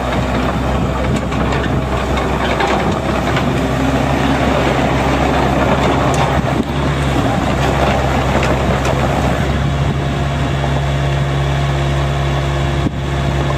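Gehl GE353 mini excavator running, its 32 hp Yanmar diesel driving the hydraulics as the upper structure swings around. The engine note turns smoother and steadier for the last few seconds.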